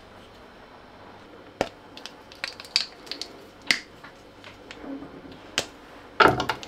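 Sharp snaps of a chocolate bar being broken into pieces: a handful of separate cracks spread over several seconds, with a louder clatter of pieces near the end.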